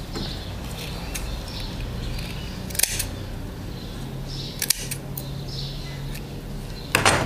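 Scissors snipping through a doll's yarn fringe: three sharp snips, about two seconds apart.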